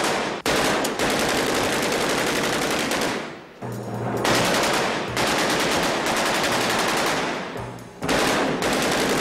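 Long bursts of rapid machine-gun fire, three in a row with short breaks between them, over a faint music score.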